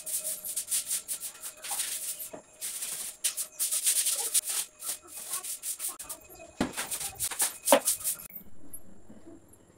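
Wet floor being scrubbed by hand: a quick, irregular series of scrubbing strokes that stop about eight seconds in.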